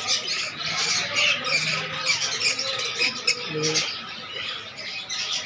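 Many caged birds chirping and squawking at once, a dense chatter of short, high calls.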